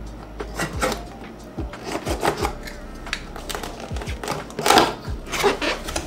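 A product box being opened by hand: irregular rustles, scrapes and small knocks as the seal is broken and the packaging is pulled open, with a louder cluster of knocks about three-quarters of the way through.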